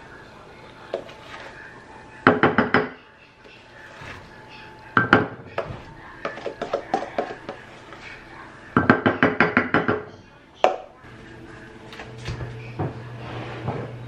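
A utensil rapping and scraping against a stainless steel mixing bowl in several quick runs of strikes, the bowl ringing with each, as cake batter is knocked out of it into a baking dish. A low hum starts near the end.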